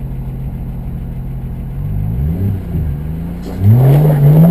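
Rock-crawler engine idling steadily, then revving in short rises and falls as the rig climbs a rock ledge. Near the end comes a louder rev that climbs and then drops away.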